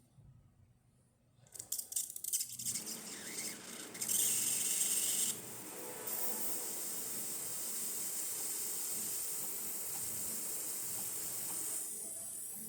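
Breville Barista espresso machine's steam wand coming up to steam: it sputters about a second and a half in, then settles into a steady hiss of steam, loudest for a second or so around four seconds in.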